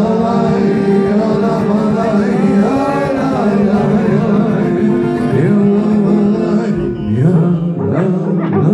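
Live concert music: male voices singing over a steady held drone, with swooping vocal slides near the end.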